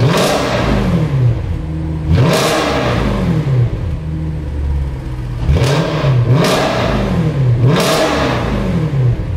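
2013 Audi RS4's 4.2-litre V8 through a Supersprint performance exhaust with replacement mid pipes, revved from idle five times. Each rev rises sharply and falls back to idle; the last three come in quick succession about a second apart.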